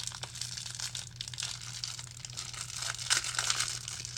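Cardboard and plastic wrapping of a trading-card hanger box being torn open and crinkled by hand, in uneven rustling strokes that grow louder about three seconds in.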